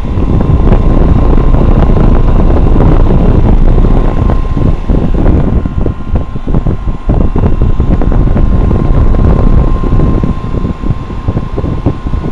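Carrier round outdoor air-conditioner condenser unit running, its fan blowing air hard across the microphone as a loud, steady rush with a thin steady tone underneath.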